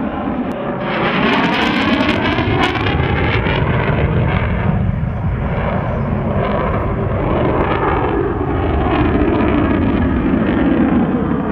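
Jet aircraft flying past, a loud, steady rush of jet noise whose tone sweeps and swells as the aircraft passes.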